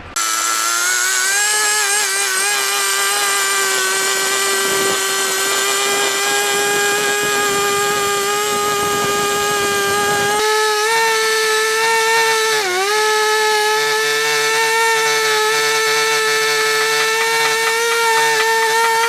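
Two-stroke Husqvarna chainsaw running at high revs while ripping a log lengthwise. Its whine is steady, steps up slightly about halfway, and dips briefly once a couple of seconds later.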